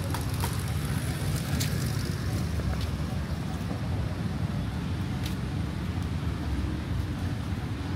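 Steady low rumble of distant city traffic, with a few faint clicks and taps.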